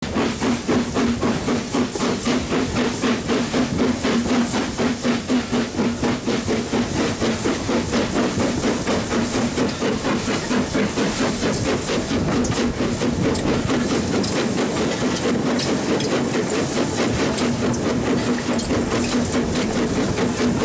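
BR Standard Class 4MT 4-6-0 steam locomotive No. 75078 running under way, heard close beside the engine: a steady rapid rhythm of exhaust beats and working motion over a constant hum.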